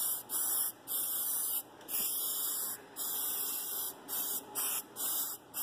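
Aerosol spray lubricant hissing from the can in a series of short bursts, a quarter second to a second each, with brief breaks between.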